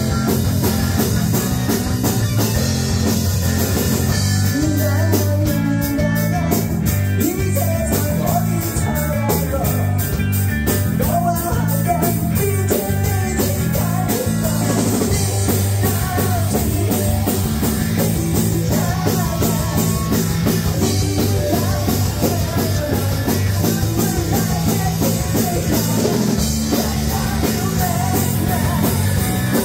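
Live rock band playing: bass guitar and drum kit with a male vocalist singing over them.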